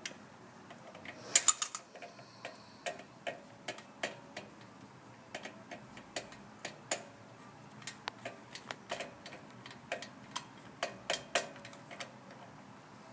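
Ratchet wrench clicking in irregular sharp ticks as a spark plug is worked loose and unscrewed, with a louder cluster of clicks about a second and a half in.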